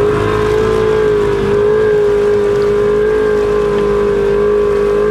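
Side-by-side UTV engine running at steady high revs as it pushes through deep water, with water rushing and splashing against the machine.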